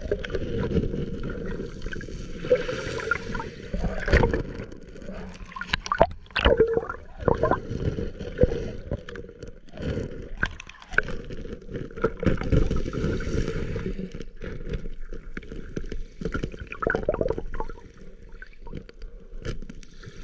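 Muffled water gurgling and sloshing heard from under the water, with irregular sharp knocks scattered throughout.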